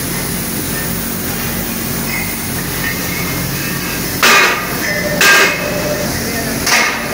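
Steady factory machinery hum, then three loud metallic clanks, about four, five and nearly seven seconds in, as a cast cluster of steel pipe tee fittings on their gating is knocked against and set into a steel wheelbarrow.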